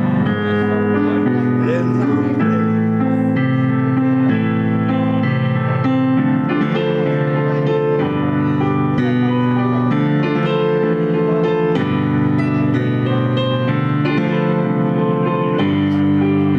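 Electric keyboard played live in an instrumental passage: sustained chords over low bass notes that change about once a second.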